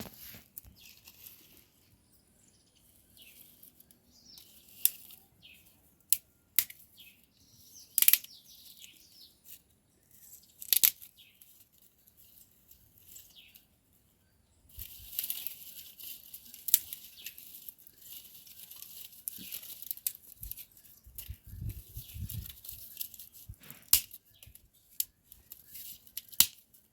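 Leafy plant stems being handled and torn, with high-pitched rustling and sharp snaps now and then. The rustling grows thicker about halfway through.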